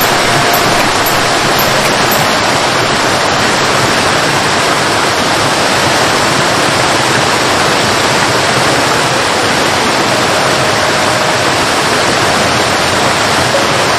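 Steady, loud rush of flowing water, like a waterfall, unchanging throughout.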